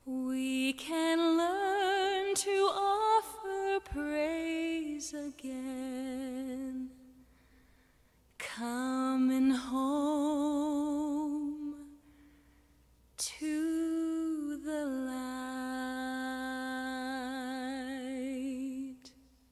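A solo female voice singing unaccompanied with a wide vibrato, in three long phrases separated by short pauses, the last a long held note.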